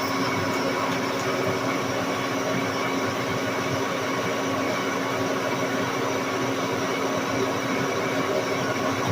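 Lodge & Shipley 1610 Power Turn lathe running at about 430 RPM under a heavy boring cut, 100 thou deep: a steady gear whine of several held tones over the continuous noise of the tool hogging metal.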